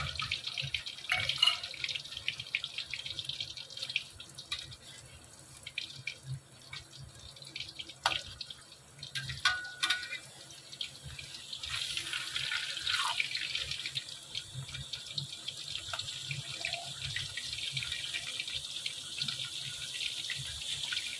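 Paneer shallow-frying in hot mustard oil in a metal pan: a steady sizzle with crackling spatters. It dies down for a few seconds in the middle and grows louder again from about halfway. A few sharp clicks stand out.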